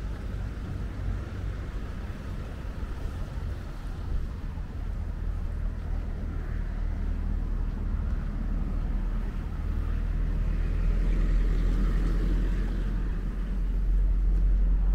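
Street traffic: a motor vehicle's engine running close by, a low steady hum that grows louder over the last few seconds.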